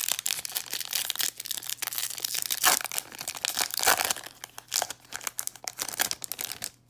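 Crinkling and tearing of a trading-card pack wrapper being ripped open, a run of sharp crackles that stops suddenly near the end.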